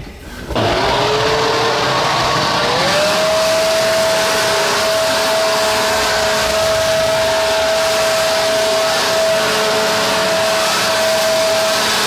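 Toro electric leaf blower switched on. Its motor winds up in pitch over the first couple of seconds, then holds a steady high whine over a loud rush of air.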